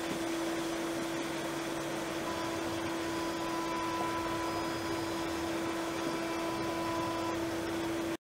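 CNC spindle milling aluminium with a three-flute carbide end mill under flood coolant: a steady tone from the spindle and cut over the hiss of spraying coolant, with a fainter higher whine joining about two seconds in. The sound cuts off suddenly just before the end.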